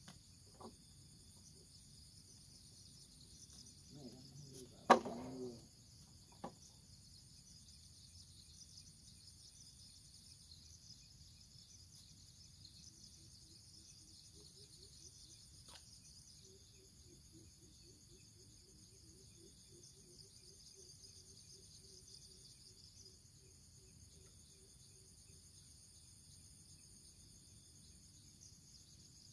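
Steady high-pitched chorus of insects, faint throughout, with one brief loud pitched sound about five seconds in.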